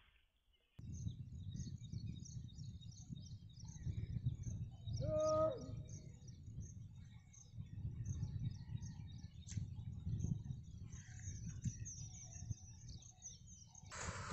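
Riverside outdoor ambience: small birds chirping steadily over a low rumble, with a short pitched call about five seconds in.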